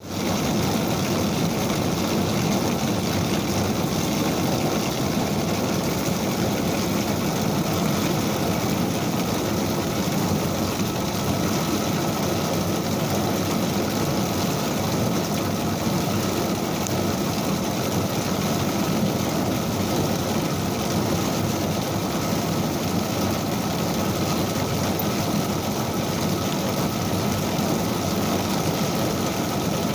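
Ijuk (sugar-palm fibre) combing machine running steadily: a continuous, even machine noise.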